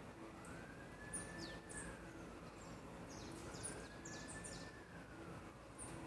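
Faint siren wailing, its pitch rising, holding high, then falling back in a slow cycle of about three seconds, with short high chirps over it.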